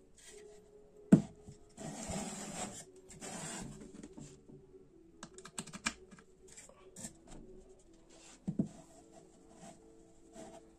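Handling noises of a small plywood speaker box on a wooden table: a sharp knock about a second in, then scraping as the box is slid along, a run of small clicks and taps as a wire plug is pushed into the box's socket, and another knock later on.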